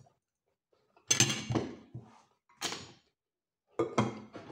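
Spoon scraping and clattering on a ceramic plate as rice is scooped and spread, in three short bursts about a second apart.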